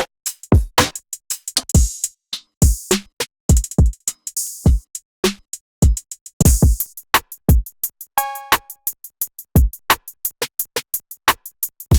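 Electronic drum one-shots from an R&B sample pack, played one after another with short gaps: kicks that drop in pitch, snares or claps, and hi-hats that come in quicker succession near the end. About eight seconds in, a short pitched one-shot sounds for about half a second.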